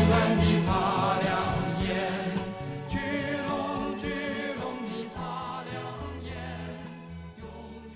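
A pop song's closing music fading out steadily, with choir-like voices and a wavering melody over a bass line.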